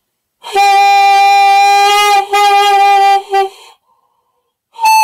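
Alto saxophone mouthpiece and neck joint blown as a single sustained tone, played with puffed-out cheeks (the 'blowfish' embouchure), which is incorrect. The tone holds steady, breaks briefly twice, stops, then sounds again near the end.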